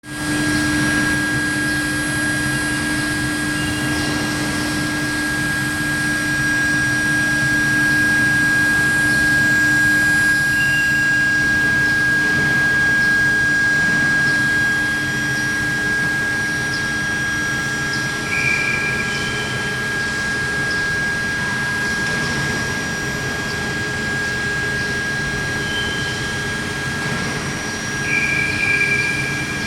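Long-bar induction hardening machine running: a steady high-pitched whine over a loud, noisy mechanical hum. A lower tone drops out about halfway through, and brief higher squeals come now and then in the second half.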